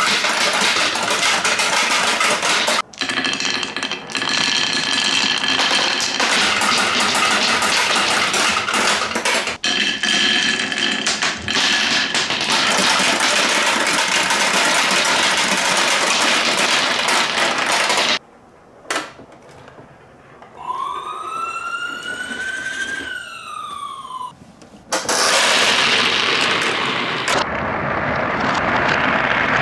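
Small plastic marbles clattering and rolling down wooden slopes and dropping into a plastic capsule-toy (gacha) machine, a loud continuous rattle. After about eighteen seconds it drops away, and a toy's electronic siren-like tone rises and falls once over about four seconds. Then a loud rattle returns as the handle of a toy bingo ball machine is turned.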